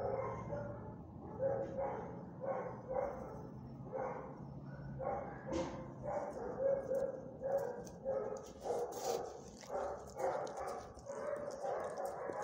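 Dogs barking repeatedly in a shelter kennel, short barks following one another several times a second with hardly a break.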